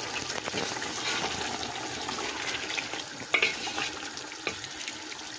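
Chicken pieces sizzling and bubbling in their own released juices in a large aluminium pot, with a few light knocks around the middle and near the end.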